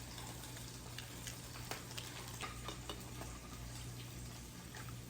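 Tofu frying in oil in a pan, with a soft, steady sizzle and scattered small pops and crackles.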